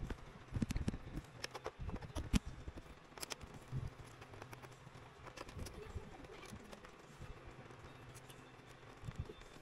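Light clicks and taps of a small screwdriver and loose screws against a laptop's plastic bottom case as the case screws are removed and gathered, busiest in the first few seconds and then sparse over a faint low hum.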